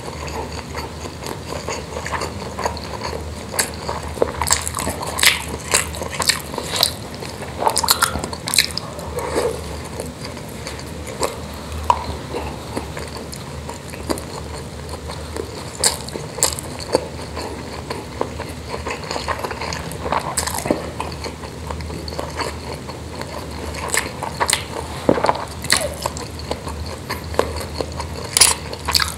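Close-miked chewing and mouth smacking as a man eats spicy meatballs (pentol mercon) with rice, heard as short irregular wet clicks and smacks.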